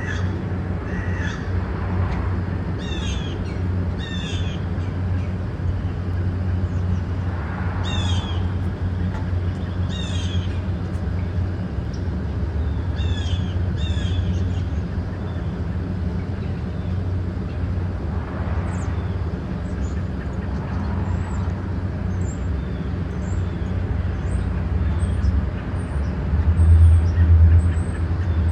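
Red-bellied woodpecker calling: about six short harsh calls in the first half, several of them in close pairs. A steady low traffic rumble runs underneath and swells near the end, with faint high chirps of small birds in the second half.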